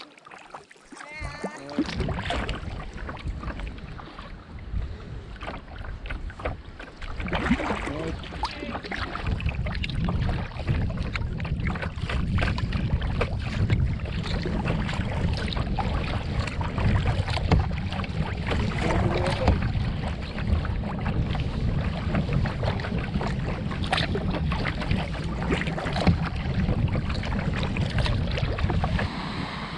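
Wind rumbling on the microphone of a camera on a kayak, over splashing and water sloshing on choppy water as the kayak is paddled.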